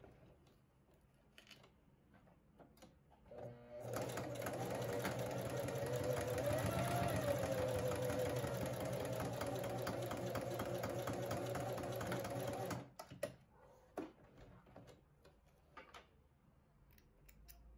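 Electric sewing machine stitching a zigzag seam through layered fabric scraps, starting a few seconds in and running steadily for about nine seconds before stopping. A few light clicks and rustles follow as the work is pulled out from under the presser foot.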